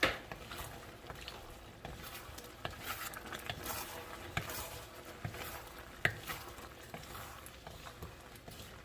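A utensil stirring and scraping chicken wings in a pan of simmering, sizzling adobo sauce, with scattered clinks against the pan. The sharpest knocks come at the start and about six seconds in.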